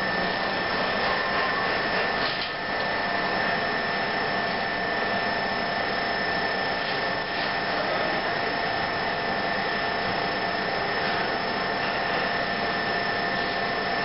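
Electric welding arc from a Fronius inverter welder burning continuously: a steady hiss with a fixed high whine, dipping briefly about two and a half seconds in.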